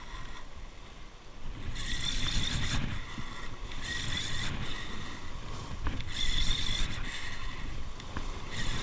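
Ryobi Virtus spinning reel buzzing in several bursts of about a second each while a hooked tuna is fought on the line.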